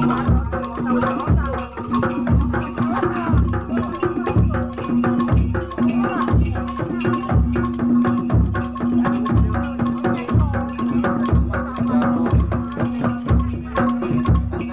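Jaranan dor ensemble music: a big bass drum beats about once a second under a steady held tone, with busy clattering percussion over it.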